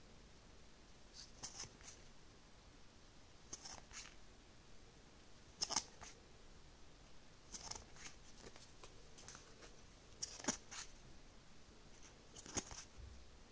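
Stiff cardboard game cards slid off a stack one at a time, each giving a soft, brief swish and snap, about every two seconds.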